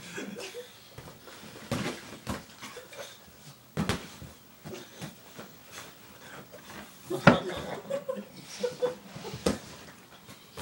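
Toddler hitting an inflatable vinyl punching bag, about five separate smacks and thumps a second or two apart. The loudest comes about seven seconds in.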